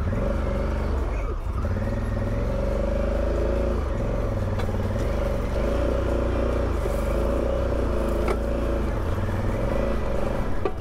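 Motorcycle engine running while riding, its revs rising and falling as the throttle changes.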